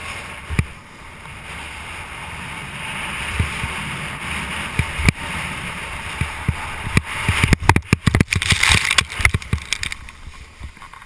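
Snowboard sliding and scraping over snow, a steady hissing rush that builds, with wind buffeting the helmet camera's microphone. A quick flurry of knocks and clatter comes about seven to nine seconds in as the board chatters over rough snow.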